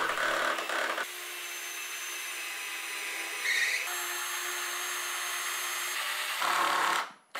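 Cordless drill driving screws into a wooden 2x4 stud frame, with a short run of drilling at the start and another near the end and a quieter steady stretch between.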